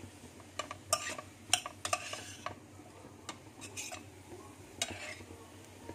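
Metal spoon scraping and clinking irregularly against a stainless steel pot while stirring flaked dried fish, onion and garlic as they sauté, over a light sizzle. The sharpest clink comes about a second and a half in.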